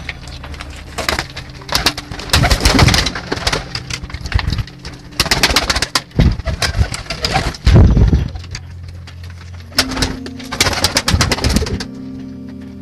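Domestic pigeons cooing in a loft, broken by three spells of loud wing flapping and scuffling, with a steady low drone underneath.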